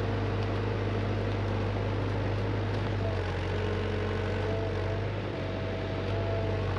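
Hyundai HX85A excavator's diesel engine running steadily, with a faint whine that rises slightly about halfway through.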